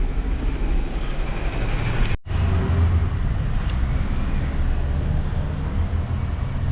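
Steady low rumble of a running vehicle engine, cut off abruptly about two seconds in and then continuing.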